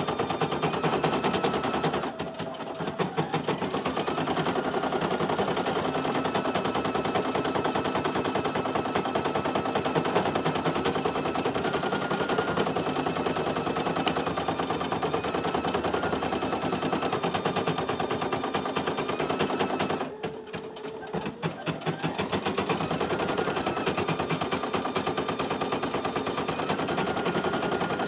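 Brother PE800 single-needle embroidery machine stitching out a design: a fast, even rattle of needle strokes over a motor whine, which eases off briefly twice, about two seconds in and again about twenty seconds in, before picking back up.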